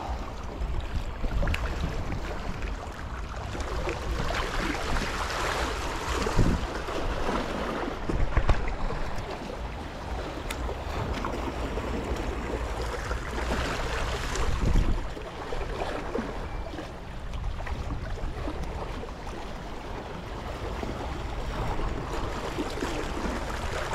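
Small waves washing and splashing against the boulders of a rock breakwater, swelling every few seconds, with wind buffeting the microphone.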